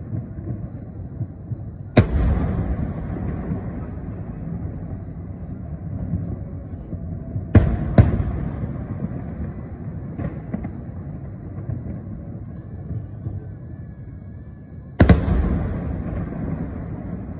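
Aerial firework shells bursting: four sharp bangs, one about two seconds in, a quick pair in the middle and one near the end. Each trails off in a rolling rumble over a steady low rumble.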